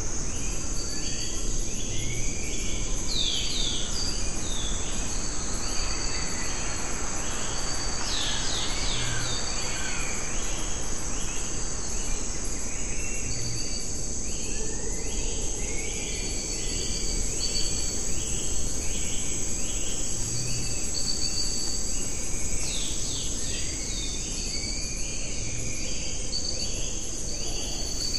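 Tropical rainforest ambience: a steady high-pitched insect drone over an even hiss, with birds giving many short, downward-sliding calls again and again.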